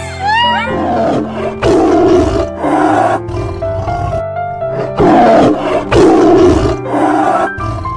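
A big cat's roars and growls, about six in a row, the loudest around five and six seconds in, over background music of steady held notes.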